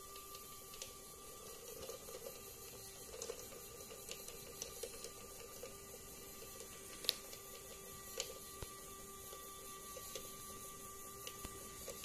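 Small electric motor of a homemade LEGO-compatible monorail engine running on a curved toothed monorail track, with a steady whine and many small irregular clicks and rattles. A louder click comes about seven seconds in.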